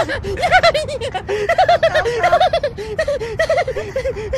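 A rapid run of short, high-pitched giggles, each rising and falling in pitch, like a person being tickled and snickering.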